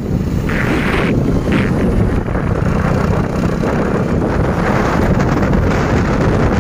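Wind buffeting the microphone of a phone carried on a moving vehicle, with steady road and engine noise underneath.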